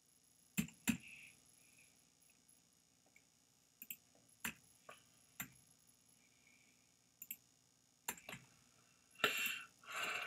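Faint computer mouse clicks and keyboard key presses, single sharp clicks spaced irregularly about a second apart, with a louder, longer rustling noise near the end.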